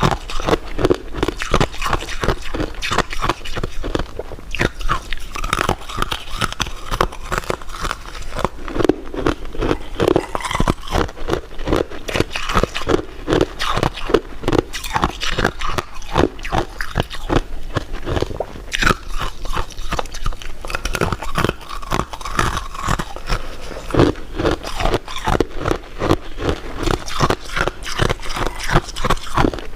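Close-miked eating sounds: rapid, continuous crunching, biting and chewing of desserts.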